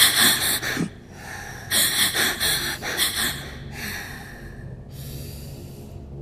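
A person panting in runs of quick, sharp, hissing breaths, with a short pause between two runs, then one longer breath that fades out and a softer steady breathy hiss near the end.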